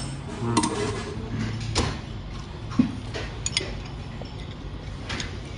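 Tableware clinking during a meal: utensils tapping ceramic bowls and dishes, a few scattered light clicks over a steady low hum of room noise.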